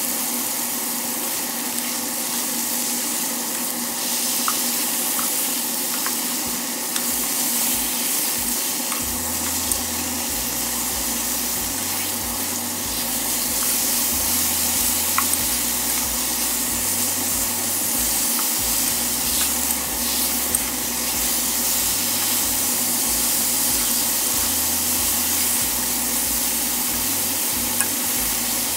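Thin-sliced beef and garlic sizzling steadily in a wok over a high flame as they are stirred, with a few light clicks.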